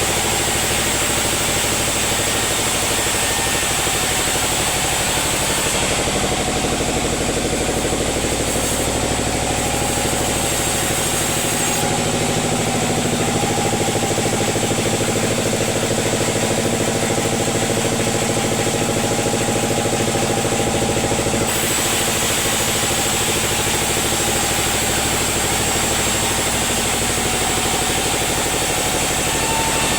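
Sawmill machinery running steadily, a continuous engine-like drone with several steady tones, its tone shifting a few times.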